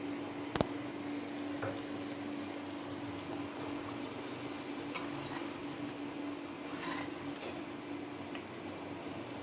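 Mutton masala bubbling and sizzling in a clay handi over a high flame, a steel spoon stirring through it; a sharp click about half a second in, over a steady low hum.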